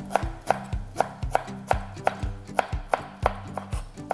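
Chef's knife chopping cilantro on a wooden cutting board, a steady run of sharp knocks at about three chops a second.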